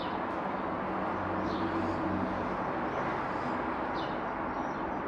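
Steady background noise, a constant hiss with a faint low hum, with a few short high bird chirps over it.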